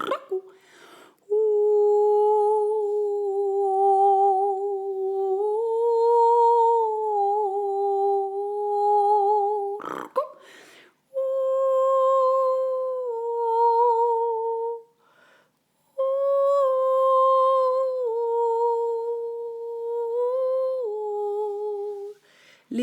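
A woman's voice humming long held notes with a slight waver, stepping up and down between a few pitches, broken by a few short pauses.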